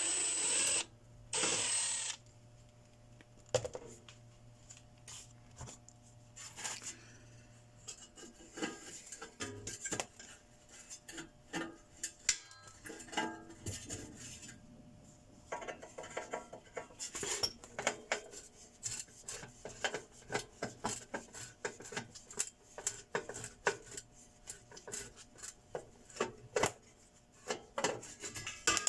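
Small metal tools and parts being handled while an inverter welding machine is taken apart: scattered clicks, clinks, knocks and scraping. Two short loud hisses come in the first two seconds.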